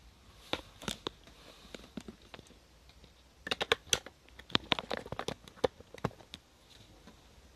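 Irregular light clicks and taps from handling: a few about a second in, then a busier run from about three and a half to six seconds in.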